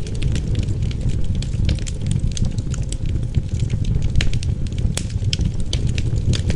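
Wood fire crackling, with frequent sharp irregular pops and snaps over a steady low rumble of wind.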